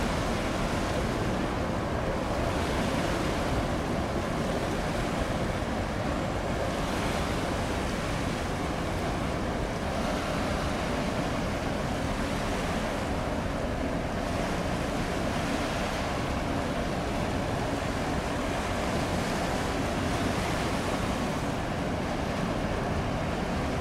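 Steady wash of water and wind noise that swells every few seconds, with a faint low steady hum underneath.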